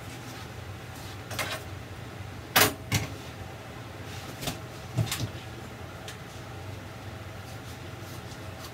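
Handling noise from a large foam 3D brick-look wall panel being lifted and flipped over on a kitchen counter: a few sharp knocks and rustles, the loudest knock about two and a half seconds in, with smaller ones around one and a half and five seconds. A steady low hum runs underneath.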